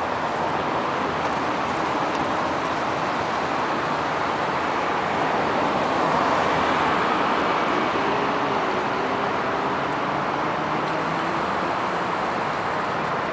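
Steady road-traffic noise from passing motor vehicles, with an engine tone gliding up and down about two-thirds of the way through.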